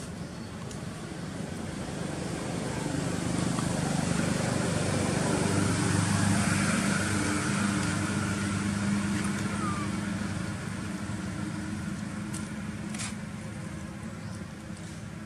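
A motor vehicle passing by: its engine swells to a peak about halfway through, then fades away. There is a single sharp click near the end.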